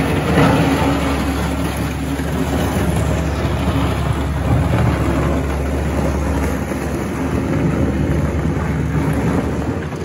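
Diesel engine of a 2003 Mustang 2054 skid steer loader running steadily as the machine drives and turns, easing off slightly near the end as it moves away.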